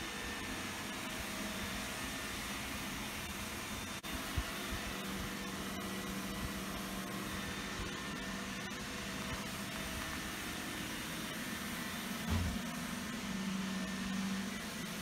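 Steady rushing background noise. There is a soft knock about four seconds in and a low thump a little after twelve seconds, followed by a low hum for about a second near the end.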